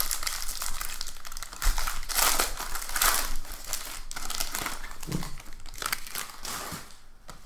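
Foil wrapper of a football trading-card pack being torn open and crinkled in the hands, loudest around two to three seconds in.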